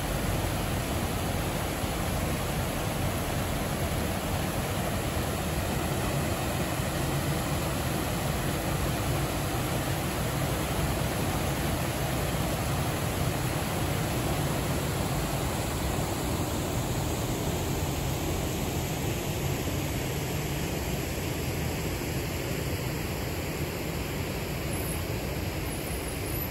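Muddy, rain-swollen river water pouring over a low weir: a steady rushing noise with a strong low rumble. The higher hiss thins a little over the last few seconds.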